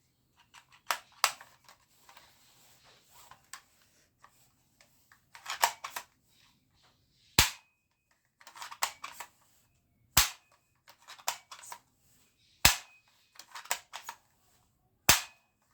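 Toy gun fired repeatedly: a sharp single shot every two to three seconds, with quick runs of smaller clicks and plastic rattling between shots.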